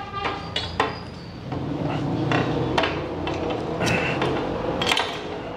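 A run of sharp clicks, knocks and light clinks from handling: the camera is moved about while a glass beer bottle is handled to be opened.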